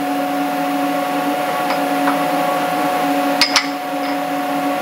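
Sharp metal clicks as a small metal plate is pressed onto a fixture held in the fourth-axis jaws for a fit test. There is one light click, then two loud ones close together past the middle, over a steady machine hum.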